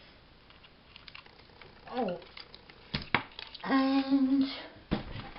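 A few sharp knocks as a metal hole punch and a paper tag are set down on a craft desk, about three and five seconds in. A short spoken 'Oh' comes before them and a drawn-out spoken 'And' falls in between.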